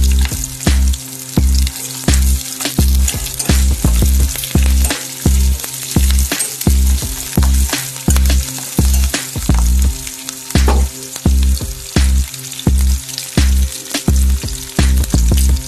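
Food frying and sizzling in a pan, with a constant hiss and the scrape and clink of stirring. Background music with a steady deep beat, about three beats every two seconds, runs underneath.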